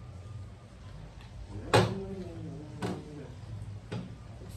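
Wooden rolling pin rolling out momo dough on a round rolling board, with three sharp knocks of the pin against the board about a second apart, the first the loudest.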